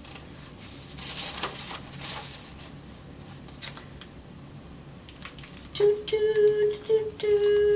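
Paper rustling and crinkling as a beeswax-style candle is handled in its kraft-paper tube, with a short click about three and a half seconds in. A steady held tone comes in for the last two seconds.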